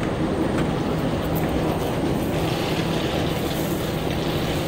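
Steady railway platform noise: a continuous rumble under a low, steady hum.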